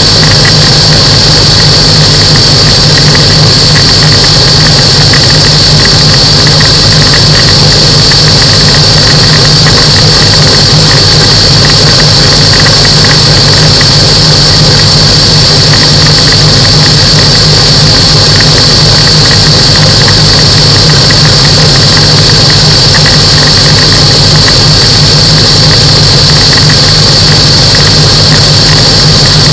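Microlight aircraft engine running steadily, very loud and unchanging, with a steady high-pitched whine over a low drone and a haze of wind and engine noise.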